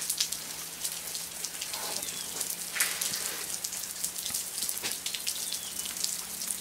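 Rain water dripping and splashing off the edge of a rock overhang: a dense, irregular patter of separate drops.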